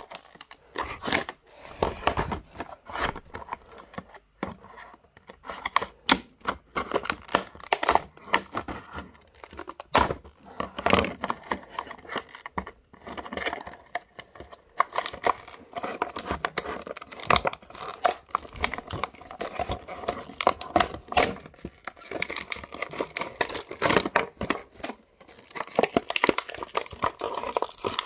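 Clear plastic blister packaging crinkling and crackling as it is handled and opened, with many irregular clicks and taps.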